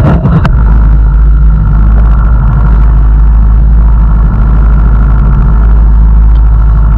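Dive boat under way: its engine running loudly and steadily, with water rushing along the hull. A couple of sharp knocks right at the start.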